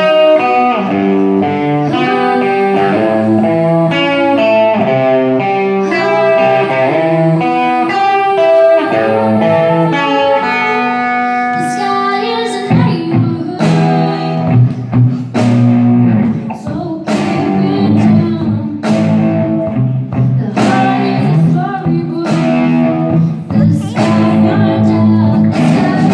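A live rock band playing: electric guitars and bass guitar carry the intro with sustained notes, and the drum kit comes in about halfway through with regular drum hits and cymbal crashes.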